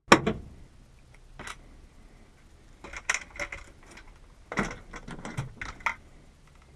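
Small metal door-lock parts being handled: a sharp knock at the start, then scattered clicks and metallic clinks in two short clusters.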